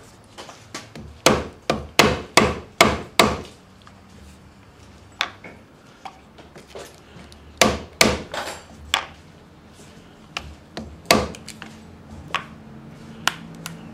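Hammer blows on a 1.5-inch steel chisel, cutting a belt-loop slot through holster leather: a quick run of six sharp strikes about a second in, then scattered single strikes, some lighter, through the rest.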